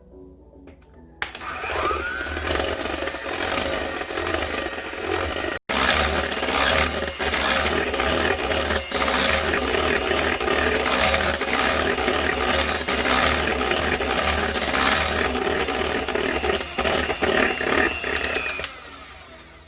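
Electric hand mixer running at speed, its beaters whipping egg whites and sugar in a bowl into a stiff-peaked meringue. It starts about a second in, cuts out for an instant about a third of the way through, and stops shortly before the end.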